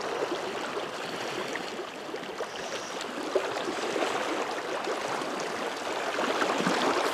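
Shallow river running over a rocky bed: a steady rush of water with small splashes and gurgles.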